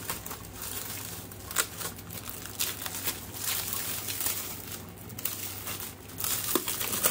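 Clear plastic packing wrap crinkling and rustling as it is pulled off a new machine by hand, a dense run of small crackles.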